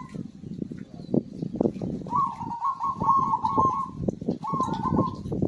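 Zebra dove (perkutut) singing its rapid, trilled cooing phrases: a long phrase about two seconds in and a shorter one near the end, over a steady low background rumble with scattered clicks.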